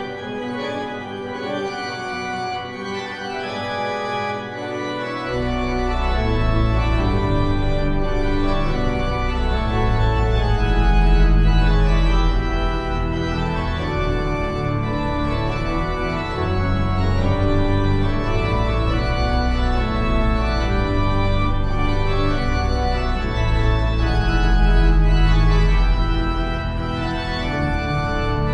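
Organ music playing slow, sustained chords; deep bass notes come in about five seconds in and the music grows louder.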